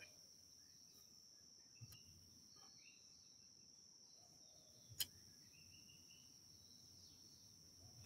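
Near silence: a faint, steady, high-pitched drone of insects, with one soft click about five seconds in.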